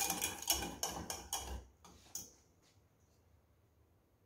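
Wire balloon whisk beating a thick béchamel sauce in a stainless steel saucepan, its wires clicking against the pan about four times a second. The whisking stops a little under two seconds in, with one last tap a moment later.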